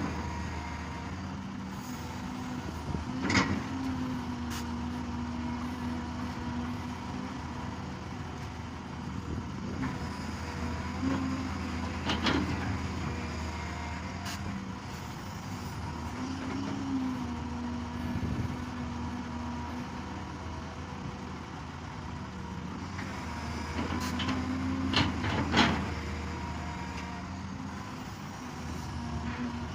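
Excavator diesel engine running steadily, its pitch rising briefly a few times as it works under load. A few sharp clanks break through, the loudest near the end.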